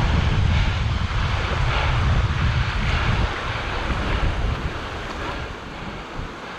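Wind buffeting the microphone over the wash of small waves in the shallows; the wind rumble eases about three seconds in, leaving mostly the water.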